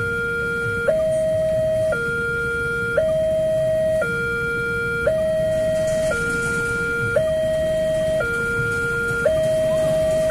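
Railway level-crossing warning alarm sounding from the loudspeaker on the crossing signal post: an electronic two-tone alarm that alternates steadily between a lower and a higher tone, each held about a second, warning that a train is coming. Idling road traffic can be heard underneath.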